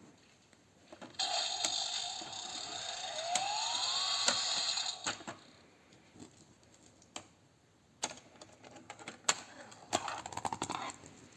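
Super Wings Jett toy's electronic sound effect from its small speaker: a jet-like whoosh of about four seconds whose pitch rises partway through. It is followed by a few sharp plastic clicks from the toy being handled.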